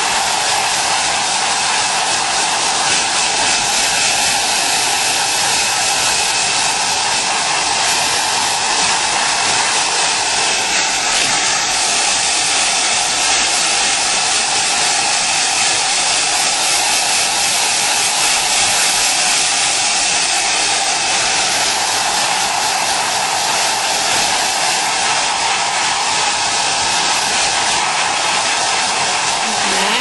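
Hair dryer running steadily on one setting: an even rush of blown air with a faint high whine, constant in level throughout.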